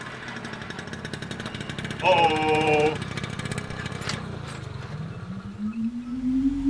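Small motor scooter engine running with a fast, buzzy putter, with a loud horn-like beep of just under a second about two seconds in. Near the end a whine rises steadily in pitch.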